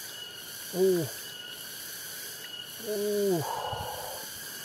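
Two short strained grunts from a man hauling a large rice-field eel out of its burrow in a muddy paddy bank, about a second apart and then near the three-second mark, each falling in pitch. Right after the second comes a brief splash of muddy water as the eel comes out.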